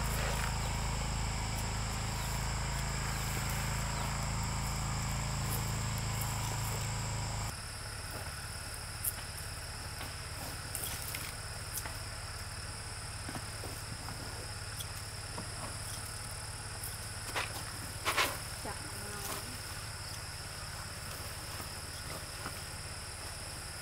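Steady high-pitched chorus of insects. A low hum underneath it cuts off suddenly about seven seconds in, and a few light clicks and knocks come later.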